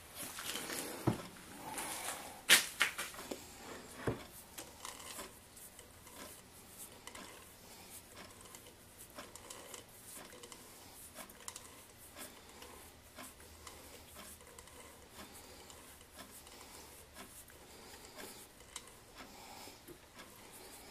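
A threading die cuts threads on a small stainless steel bolt while the lathe chuck is turned by hand. There are a few sharp metallic clicks in the first few seconds, then faint irregular ticking and scraping.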